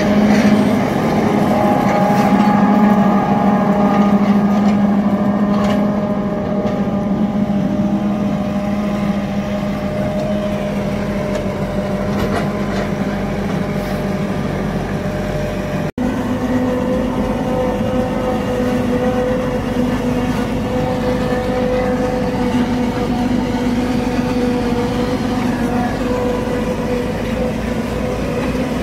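Massey Ferguson 4290 Turbo tractor's diesel engine running steadily under load, driving a PTO forage harvester that chops standing maize for silage and blows it into a trailer. A steady drone that drops out for an instant about halfway through.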